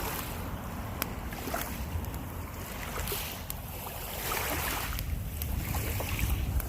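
Small campfire crackling, with scattered sharp pops, over a steady low rumble of wind on the microphone.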